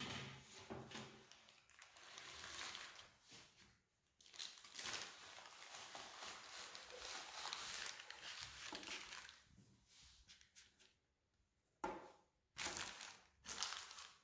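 Faint rustling and crinkling of baking paper as the sheet of pastries is slid onto a metal baking tray, with a few short rustles near the end.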